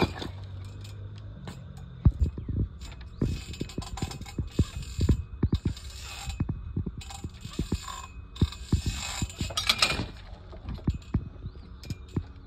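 Ninja obstacle rings and cane grips rattling and knocking on their metal hangers and steel pipe bar as a climber swings between them. The sound is a string of irregular sharp knocks and clinks.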